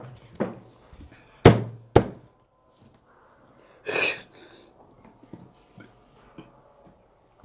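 A light knock, then two loud thumps on the table about half a second apart, followed about four seconds in by a short hissing sound.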